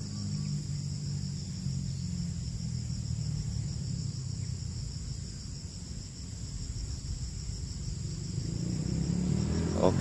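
Steady, high-pitched insect chorus over a low, steady rumble.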